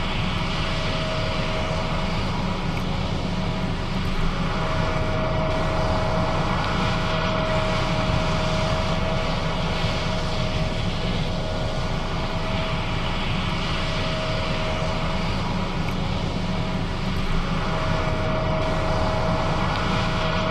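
John Deere S660 combine running steadily while harvesting soybeans: a continuous engine and machinery drone. A steady high whine rides on top and drops out twice.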